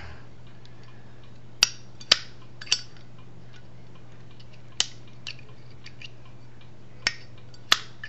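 Zippo lighter lid being flipped open and snapped shut, about six sharp metal clicks spread unevenly, without the usual ringing ping: the cross member inside the lid has been pushed into the wrong place, so the cam spring cannot strike the lid like a bell.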